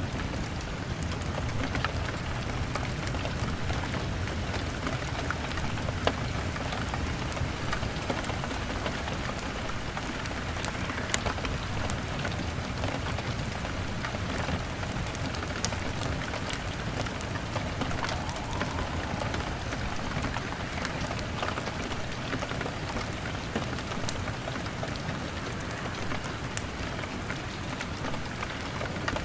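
Steady rain on a window, an even hiss of drops, with a few sharp pops or crackles standing out now and then.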